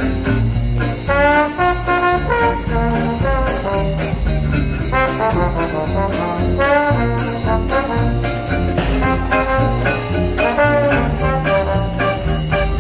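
Live traditional jazz band playing swing: a trombone carries the melody with sliding notes over drums, banjo and double bass keeping a steady beat.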